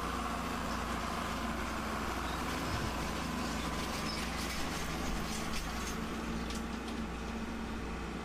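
Tractor engine running steadily as it tows a Molehill Destroyer drag harrow at working speed, with faint clinks from the drag's chains and spring tines.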